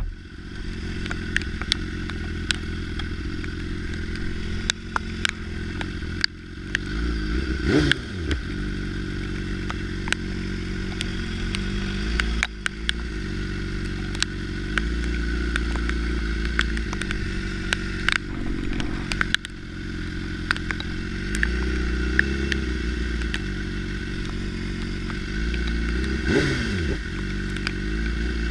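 Motorcycle engine running steadily at a low idle, with scattered sharp ticks of rain hitting the camera. Twice, about 8 s in and near the end, a falling pitch sweep passes.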